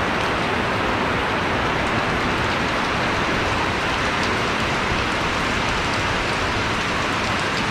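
Steady, even hiss of water, loud and without pauses.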